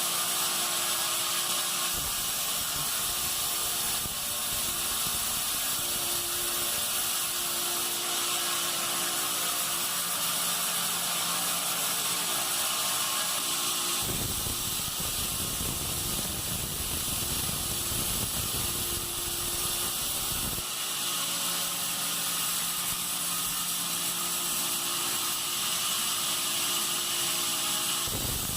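Band sawmill running and sawing pine: a steady high hiss from the blade with a constant motor hum under it. A heavier low rumble joins in from about halfway through for several seconds.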